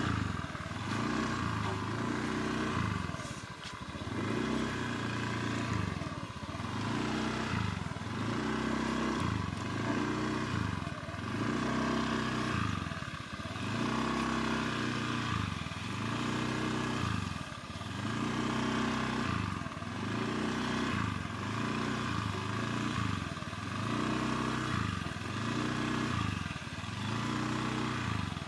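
Small motor scooter engine running, its pitch rising and falling in a steady cycle about every second and a half.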